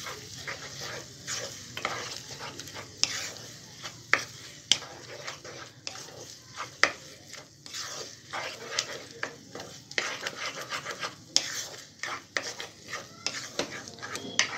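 A wooden spatula stirring and scraping an egg, onion and tomato scramble around a non-stick kadai, knocking against the pan at irregular moments, with a light sizzle of frying underneath.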